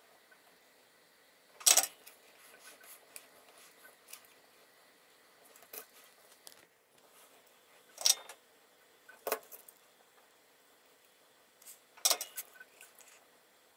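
A few sharp, light metallic clicks and taps, four louder ones several seconds apart with faint ticks and rustles between: a soldering iron, small tools and a metal GX16 connector being handled while wires are soldered to it.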